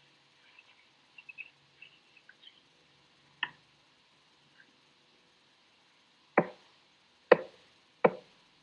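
Faint scattered clicks, a sharper tap about three and a half seconds in, then three loud, sharp knocks under a second apart near the end.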